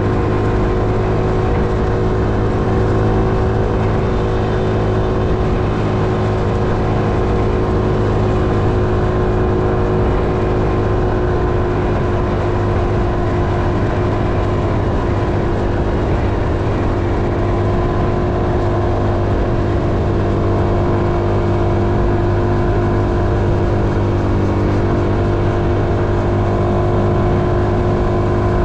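A vehicle's engine running at a steady speed on the move, a constant drone with no change in pitch or loudness.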